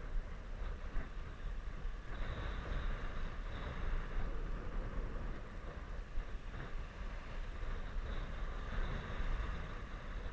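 Wind buffeting the camera microphone in a steady low rumble, with small waves washing over a stony shoreline.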